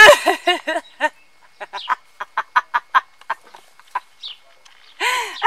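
A woman cackling with laughter: a loud harsh burst at the start, then runs of short staccato 'ha' pulses, several a second, and another loud burst near the end.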